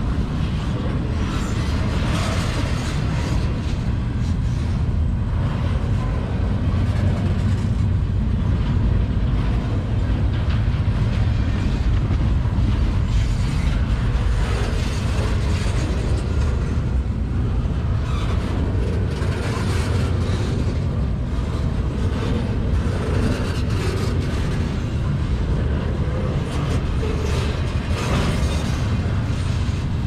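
Empty intermodal well cars of a freight train rolling past close by: a steady low rumble of steel wheels on rail, with continual rattling and clanking from the cars.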